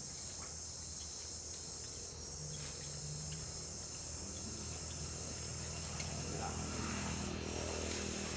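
A steady, high-pitched chorus of insects buzzing, which dips briefly twice, over a low steady hum, with a few faint ticks.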